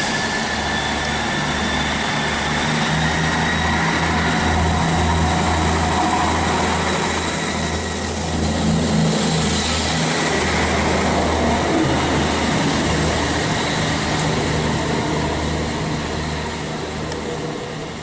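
Class 158 diesel multiple unit pulling away, its diesel engines running under power with a low drone that swells and dips every second or two, plus rail noise. The filmer takes the unit's behaviour for a recurring transmission fault.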